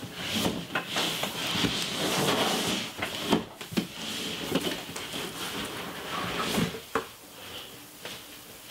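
Large cardboard toy box being opened: its parts slide against each other with a dry scraping rub as the lid and insert are lifted off, with several sharp knocks of cardboard along the way.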